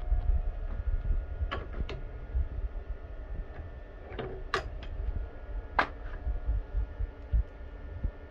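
A handful of sharp metal clicks and taps as tool holders are handled on a CNC lathe's quick-change toolpost, over a faint steady electrical hum and low rumble.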